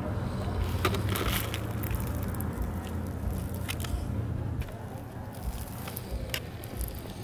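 Crisp fried masa quesadillas crackling and crunching as they are torn apart by hand, over a steady low rumble.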